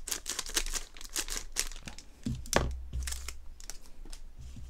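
Crinkling of a foil Pokémon First Partner Pack wrapper as it is handled and worked at to open it, with a knock a little over halfway through.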